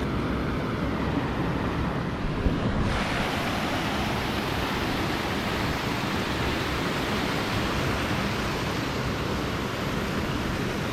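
Steady rush of flowing river water, turning brighter and hissier about three seconds in.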